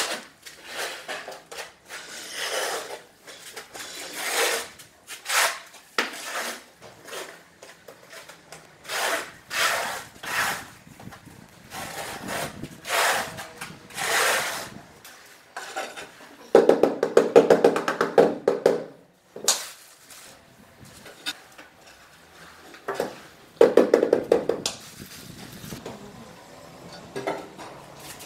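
Steel notched trowel scraping and combing tile adhesive across a concrete floor in short repeated strokes, about one a second. Two longer, louder grating passes come later, with a ringing edge to them.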